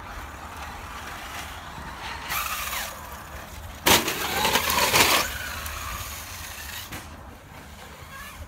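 Radio-controlled car driving on dirt: its motor whines in pitch sweeps that rise and fall as the throttle is worked, with a rush of tyre and dirt noise. It is loudest for about a second just before halfway, after a shorter, weaker burst a second or so earlier.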